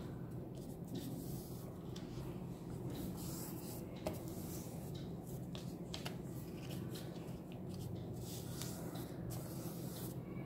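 Hands rubbing and pressing a glued paper panel flat onto card: repeated soft brushing strokes of skin on paper, with a small tap about four seconds in, over a steady low hum.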